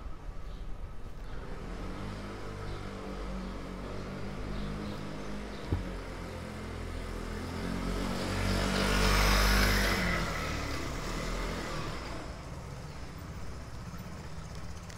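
A motor vehicle passing close by, building to its loudest about nine seconds in and fading over the next two seconds, over a steady low engine hum. A single sharp click about six seconds in.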